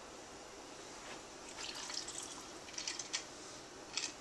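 Liquor poured from a small measuring cup into a glass of ice: faint pouring and trickling in the middle, with a light click near the end.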